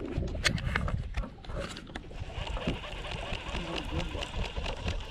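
Water lapping against a bass boat's hull, with wind rumbling on the microphone and a scatter of small clicks and knocks from the deck and tackle.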